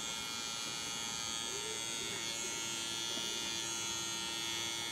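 Electric hair clippers buzzing steadily as they are run through a cat's fur.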